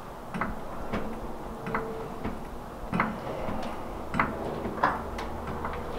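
A jack being worked under a Chevy Silverado's unbolted pickup bed, lifting it: a series of short clicks and knocks at uneven spacing, roughly one every half second to second.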